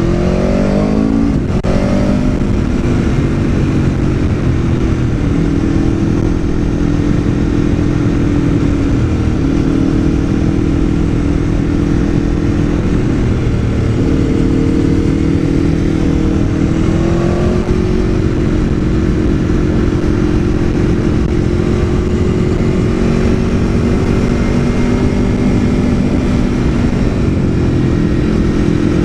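Aprilia Tuono V4 1100 APRC's V4 engine under way, its pitch rising hard at the start and breaking off briefly about a second and a half in. It then runs fairly steady, with a few small shifts in pitch.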